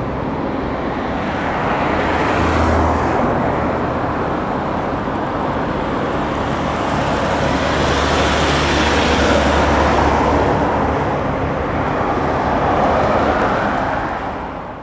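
Steady road traffic with a low rumble, swelling several times as vehicles pass, and fading out at the end.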